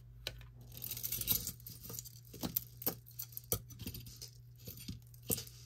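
Costume jewelry being handled and set down: beads and small metal pieces clicking and clinking in irregular light taps, with a short rustle about a second in.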